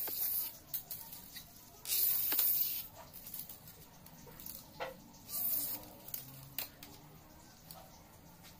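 A cutter blade scraping along a strip of green bottle plastic to thin it into a kite hummer (sendaren) ribbon: three short scraping strokes, near the start, about two seconds in and about five and a half seconds in, with small clicks and ticks of handling between.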